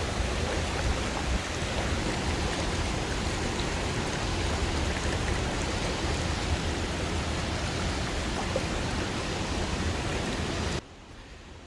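Steady rushing and splashing of a waterfall, an even roar of falling water that cuts off suddenly near the end.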